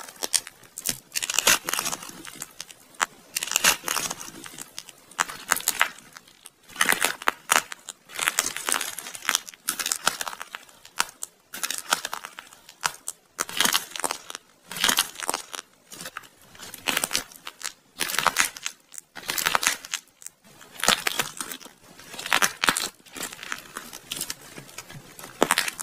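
Dried clay being squeezed and pulled apart by hand, its hard outer crust cracking and crumbling in repeated crackly, tearing bursts with short pauses between squeezes.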